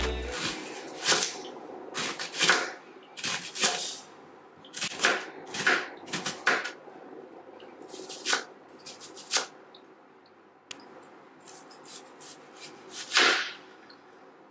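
A chef's knife slicing an onion on a plastic cutting board: short, crisp cuts, each ending in a tap of the blade on the board, at an uneven pace of roughly one a second, with a louder cut near the end.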